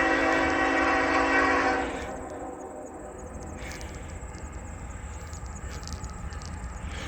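Raised-letter Nathan K5HL five-chime locomotive air horn holding its chord, which cuts off about two seconds in. After it, the train rolls by with a low rumble and wheel clicks.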